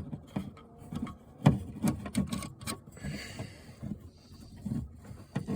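Irregular clicks, knocks and scrapes of a coax antenna cable connector being pushed and twisted onto a CB radio's antenna jack, without locking in place.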